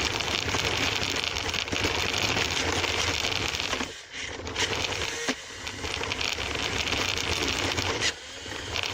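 Toy remote-control car driving, its small electric motor and wheels running over the ground with a steady rough whirring noise that drops off briefly about four seconds in and again near the end.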